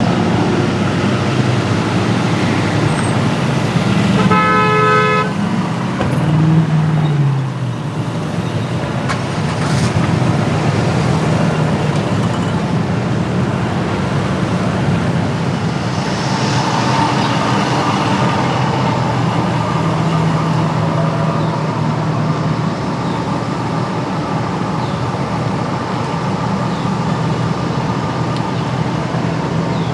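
City street traffic with car engines running past. A car horn sounds once, about a second and a half long, about four seconds in, followed by an engine note dropping in pitch.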